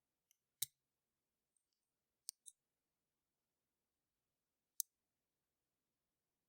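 A few faint, sharp metallic clicks from a lock pick and tension tool working the pins inside a registered US mail padlock, against near silence: one a little over half a second in, a quick pair around two and a half seconds, and one near five seconds.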